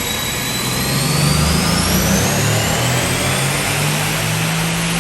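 Mercedes-AMG C63 S V8 at full throttle on a chassis dyno during a tuned power pull, with a high whine climbing steadily in pitch as the speed rises.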